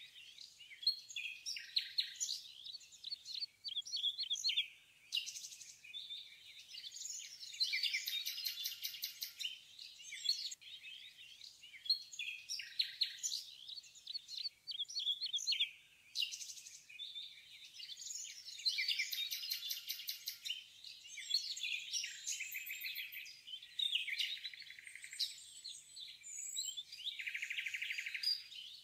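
Songbirds chirping, whistling and trilling in quick succession, with bursts of fast trills. The same phrases recur about every eleven seconds.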